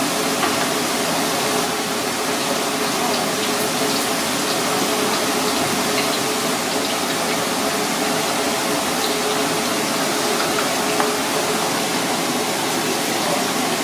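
Floured parrotfish frying in hot oil in a cast-iron pan: a steady, loud sizzle with scattered small crackles, over a steady low hum.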